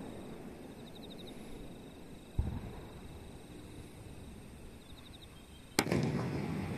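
Aerial fireworks: a dull thump about two and a half seconds in, then a sharp, loud bang of a shell bursting near the end, with a low rumble rolling on after it.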